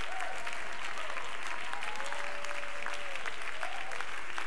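Congregation applauding in a steady, dense patter of clapping.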